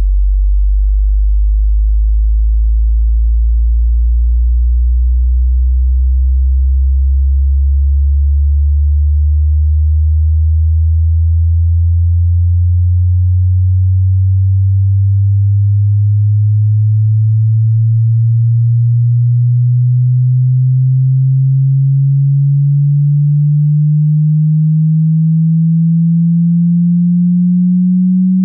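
A single pure sine tone slowly sweeping upward in pitch, rising steadily from a very deep hum to a low tone. It is the low end of a low-to-high frequency-sweep hearing test.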